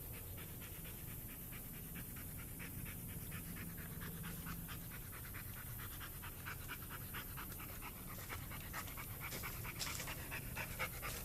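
A dog panting quickly and steadily, several breaths a second.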